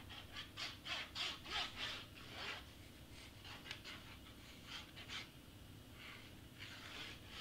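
A squeeze bottle of white craft glue being squeezed as glue is laid on cardstock: a quick run of short hissy squirts, several a second, in three bunches.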